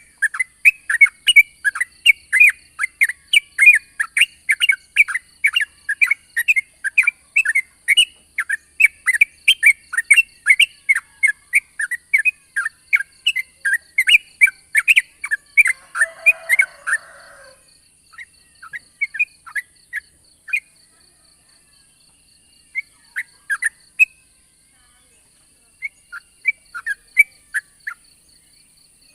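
Yellow-vented bulbul (trucukan) singing a long, rapid run of short, bubbling notes, about four a second, which breaks up about 17 seconds in into scattered short phrases. A steady faint high-pitched buzz runs underneath.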